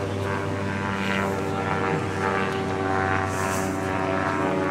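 Steady engine drone: a low hum with several held tones above it that do not change pitch, with faint voices of people around.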